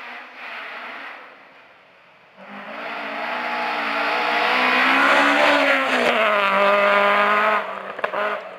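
Ford Escort Mk2 rally car driven flat out on a gravel stage, its engine note growing loud as it closes in and passes, dropping sharply about six seconds in, then falling away as it goes off.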